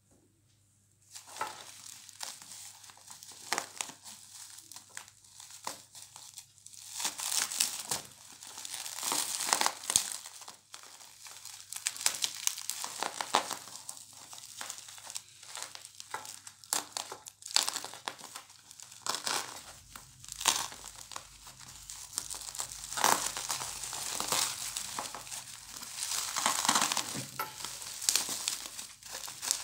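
Plastic bubble wrap crinkling and crackling in the hands as a parcel wrapped in it and brown packing tape is pulled open. It starts about a second in and comes and goes unevenly, in handfuls of sharp crackles.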